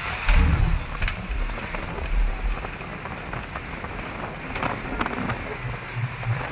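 Wind on the microphone: a steady hiss with irregular low rumbling gusts and a few sharp clicks.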